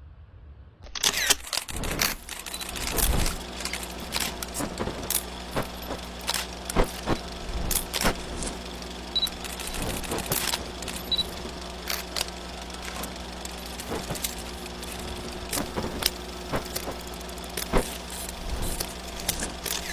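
A steady mechanical hum with many irregular sharp clicks and knocks over it, starting about a second in.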